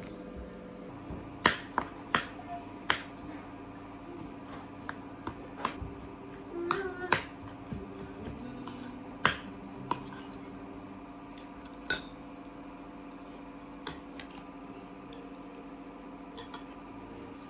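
Kitchen clatter: irregular clicks and knocks of utensils and dishes over a steady low hum.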